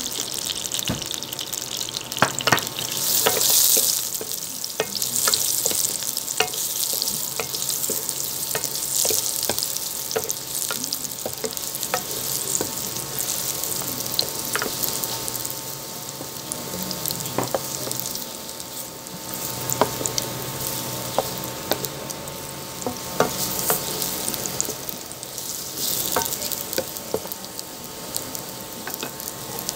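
Saba banana slices sizzling as they fry in oil in a wok. Frequent short taps and scrapes come from a wooden spatula turning them in the pan.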